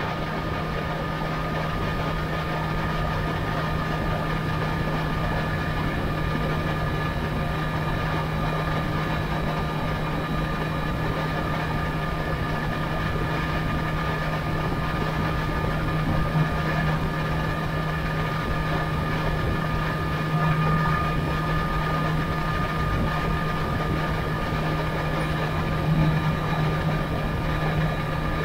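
Sport motorcycle cruising steadily in sixth gear at about 73 mph: a steady engine drone over wind and road noise.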